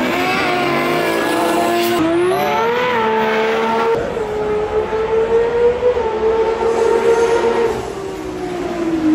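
Race cars accelerating hard down the drag strip, engines held at high revs: the pitch rises, holds steady for several seconds, then falls away near the end.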